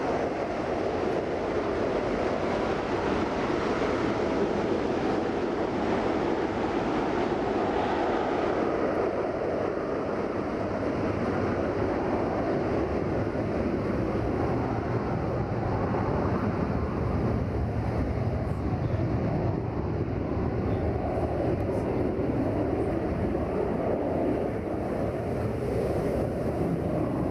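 Jet airliner engines running at high thrust, a loud steady rumble that loses some of its high hiss about a third of the way in.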